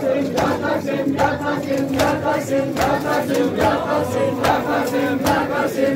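A crowd of Shia mourners chanting together in a loud, sustained unison, over sharp slaps that come about two to three times a second.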